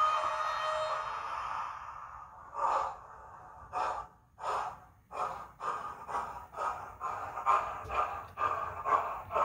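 DCC sound decoder in a model steam locomotive, heard through its small loudspeaker. A whistle fades away over the first second or two. Then exhaust chuffs begin, slow at first and quickening to about three a second as the locomotive starts away.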